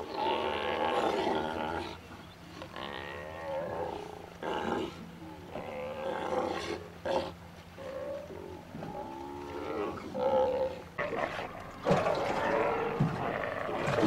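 Steller sea lions roaring and growling, many calls following and overlapping one another, some held on a pitch and others rough, with sharper, louder calls near the end.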